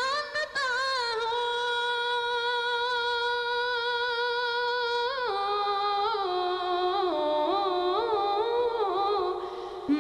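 Male naat singing: one long note held steady, then from about five seconds in the voice descends in ornamented steps with small wavering turns.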